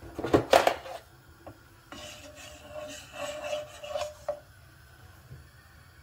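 Wooden spoon scraping and rubbing across the bottom of a granite-coated nonstick pan holding a little oil, in a run of strokes lasting about two seconds. A louder rasping scrape comes first, in the opening second.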